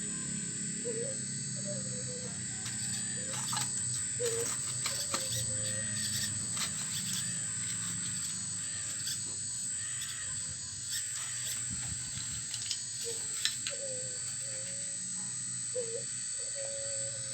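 Full-metal RC excavator working: its motors run with a steady hum and a high whine, with scattered clicks and scraping as the bucket digs into rock and soil, and short squeaks now and then.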